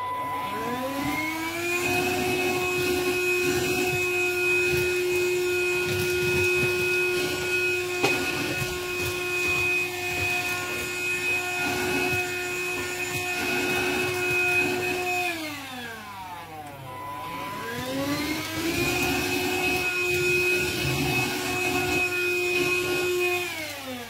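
Handheld vacuum cleaner switched on, its motor whine rising to a steady pitch and running. About 15 seconds in it winds down, is switched on again a couple of seconds later and runs steadily until it starts winding down near the end.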